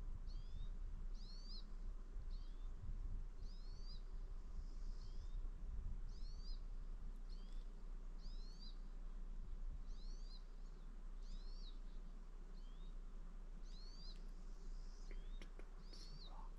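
A small bird calling over and over: short, high chirps that sweep downward, often in pairs, roughly once a second, over a faint steady background hiss.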